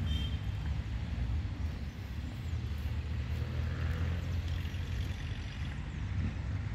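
Road traffic around a city roundabout: cars passing at a distance, heard as a steady low rumble.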